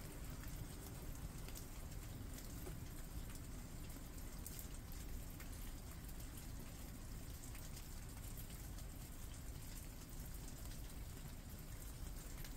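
Steady rain falling on leafy foliage, an even patter with scattered individual drops ticking.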